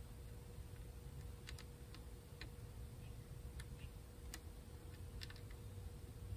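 Faint, irregular small clicks and ticks as a plastic super glue bottle is squeezed and worked along a crack in a mandolin's wooden top, over a steady faint hum.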